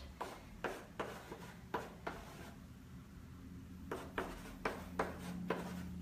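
Chalk writing on a painted refrigerator door: a run of short scratchy strokes and taps as letters are drawn, with a pause of about a second and a half in the middle.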